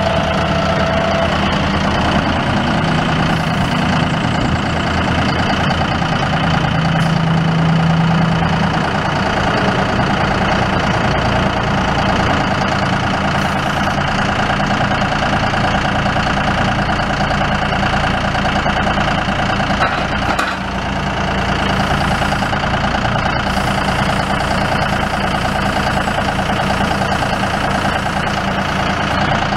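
John Deere 5065E tractor's three-cylinder diesel engine running steadily while the 520M front loader is raised and lowered, with a brief dip in level about twenty seconds in.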